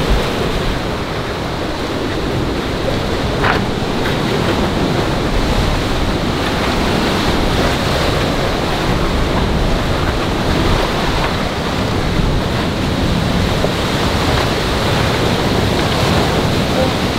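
Sea surf washing over boulders at the foot of a cliff, a steady rushing noise, with wind buffeting the microphone.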